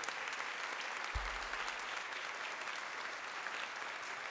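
Audience applauding: many people clapping steadily in an auditorium.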